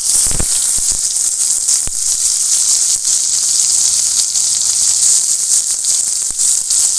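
Onions dropped into hot mustard oil in a kadai, sizzling loudly the instant they hit the oil and frying with a steady hiss. A few sharp knocks sound in the first two seconds.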